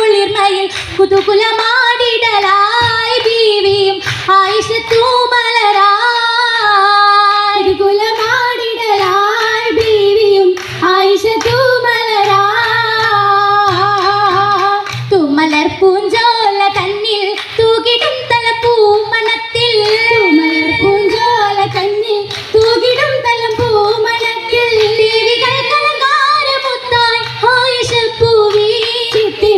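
Oppana song: girls' voices singing a flowing Mappila melody together, with sharp hand claps keeping the rhythm.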